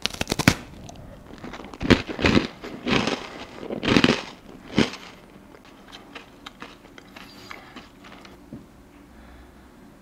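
Crisp crunching of teeth biting into and chewing a hard, twice-baked almond biscotti: about five loud crunches in the first five seconds, then only faint small clicks. A quick train of sharp clicks comes right at the start.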